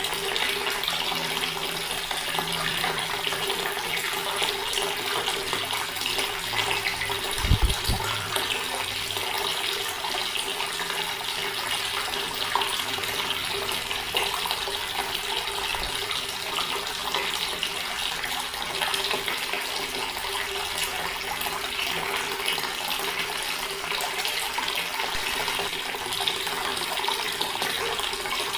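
Water running steadily from a tap and splashing. A brief low thump about seven seconds in.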